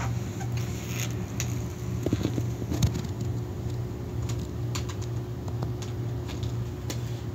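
A steady low hum with scattered light clicks and taps, which bunch together about two to three seconds in.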